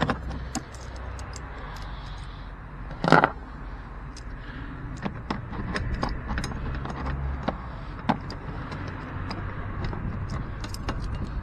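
Light metallic clicks and clinks of hand tools being worked against the wiper arm, with one louder clank about three seconds in, over a steady low hum.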